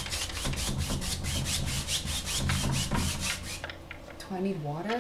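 Large bristle paint brush making rapid, rhythmic scratchy strokes, about five or six a second, that stop about three and a half seconds in.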